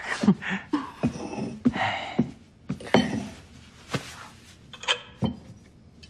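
Scattered clinks and light knocks of dishes and tableware at a dinner table, about ten short taps, with soft rustling of people moving in their seats.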